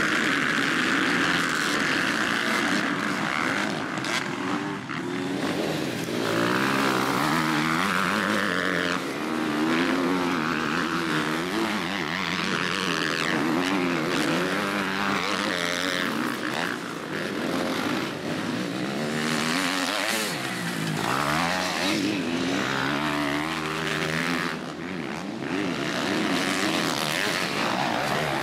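Motocross bikes racing on a dirt track, their engines revving up and down again and again as the riders accelerate and shift gear.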